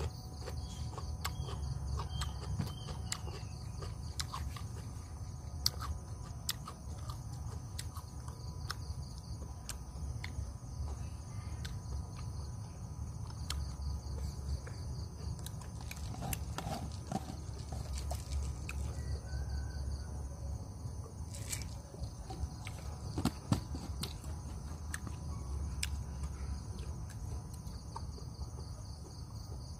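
Steady high chirring of crickets, with a continuous low rumble underneath and scattered small clicks.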